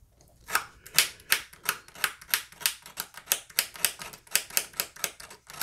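Quick, even scraping strokes, about three a second, on the end of a thin enamelled magnet wire, stripping off its insulation so the wire can be soldered.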